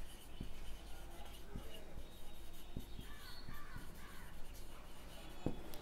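Marker writing on a whiteboard: faint scratches and small taps of the felt tip as a word is written, in a quiet room.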